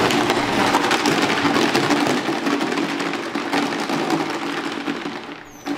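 Plastic rattle jug shaken near the floor, a dense continuous rattling of its loose contents that thins out near the end. It is the noise test in a Malinois puppy's temperament assessment.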